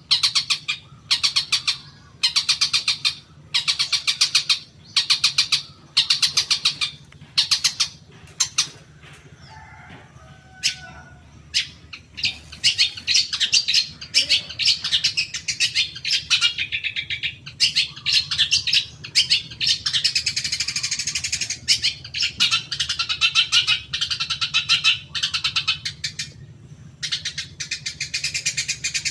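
Long-tailed shrike (cendet) calling: short rapid harsh rattles about once a second, then, after a brief pause, a long unbroken chattering song, then short rattles again near the end. It is a shrike lure recording played to provoke caged shrikes into answering. A steady low hum runs underneath.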